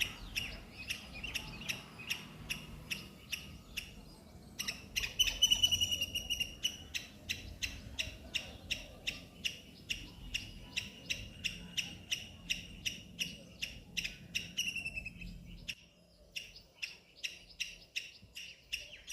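Indian palm squirrel squeaking: a long run of sharp, high chirps repeated a few times a second, with a brief pause about four seconds in, then a quick trill.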